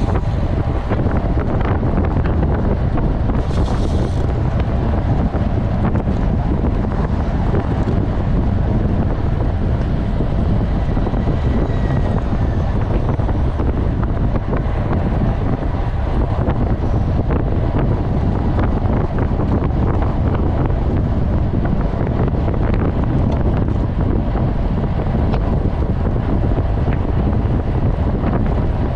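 Steady wind buffeting a bicycle-mounted camera's microphone at racing speed, about 40 to 46 km/h, with low road and tyre rumble under it.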